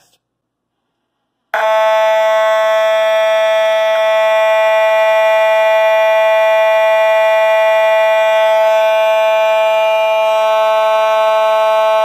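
Simplex 4901-9817 electromechanical fire alarm horn with its dual projector attachment, sounding on test after repair. It cuts in abruptly about a second and a half in and holds one loud, steady, unbroken tone rich in overtones.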